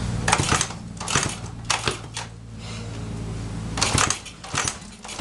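1975 Honda CB125S single-cylinder four-stroke engine running rough as the throttle is worked, its low running note broken by a string of loud, irregular pops and sputters. These are misfires, which the owner had narrowed down to the plug, points, condenser or coil.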